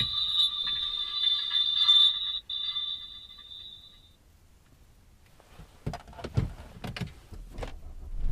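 A car's electronic warning tone sounds steadily for about four seconds and then stops. A few sharp clicks and knocks follow near the end.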